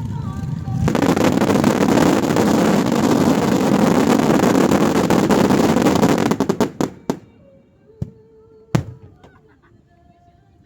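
Fireworks going off in a dense, rapid barrage of crackling bursts for about five seconds, then breaking up into a few separate sharp bangs, the loudest a single bang near the nine-second mark.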